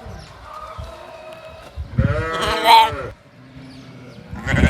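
Sheep bleating: one wavering bleat about two seconds in, lasting about a second, and a second bleat starting near the end.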